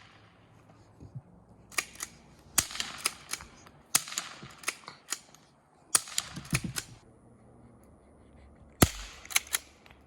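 Henry pump-action .22 LR rifle firing CCI Quiet low-noise rounds: a series of sharp, fairly light pops mixed with the metallic clacks of the pump action being worked between shots, in clusters with short pauses.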